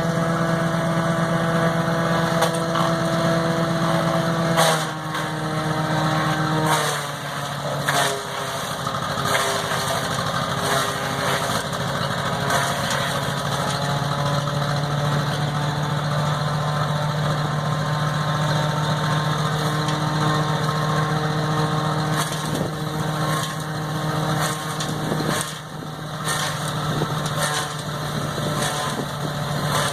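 Small-engine wood chipper chewing through Christmas tree branches: the engine note drops twice under load in the first several seconds, then runs steadily, with sharp cracks and snaps of wood being shredded throughout.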